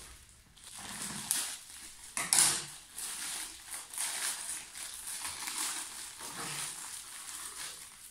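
Plastic mailer packets crinkling and rustling as they are handled and torn open, with a louder crackle about two seconds in.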